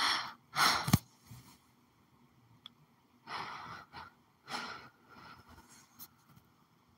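A woman breathing heavily close to the microphone: two breaths at the start and two more about three seconds later, with a sharp click about a second in.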